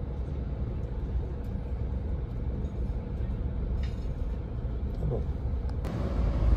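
Steady low rumble of a car driving, with road noise.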